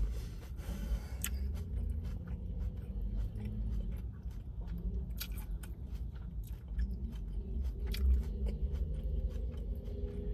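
Close-up chewing of a lettuce-wrapped burger, with wet mouth clicks throughout and a few sharper clicks about a second, five seconds and eight seconds in.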